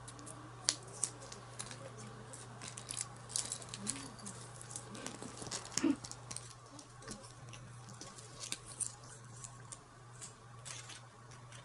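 Irregular light clicks and crinkles of foil-and-plastic blister packs and loose tablets being handled, over a steady low hum.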